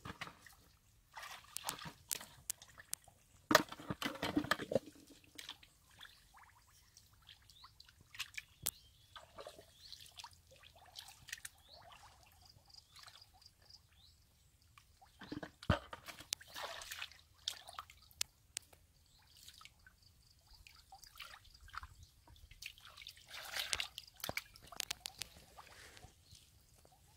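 Hands and legs squelching and sloshing through thick, wet mud as the hands feel through it for fish, with drips and small splashes of muddy water. There are a few louder bouts of stirring, about four seconds in, around the middle and near the end.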